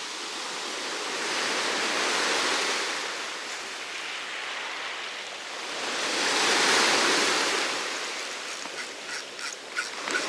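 Sea waves breaking on a beach: two swells of surf that rise and fall about four seconds apart, with a few small clicks near the end.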